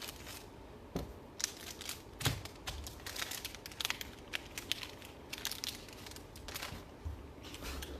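Trading-card pack wrappers crinkling and cards being handled, a run of quick irregular crackles and clicks.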